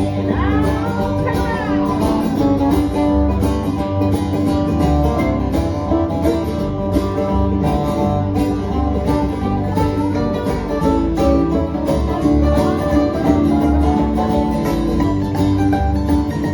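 Instrumental break of a bluegrass-style country gospel song: acoustic guitar and other plucked strings picking a steady beat.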